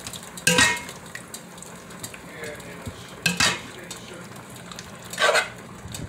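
Spoon stirring beef strips in thick gravy in a large metal pot, with a wet stirring sound throughout and three sharp clanks of the spoon against the pot, roughly every two and a half seconds.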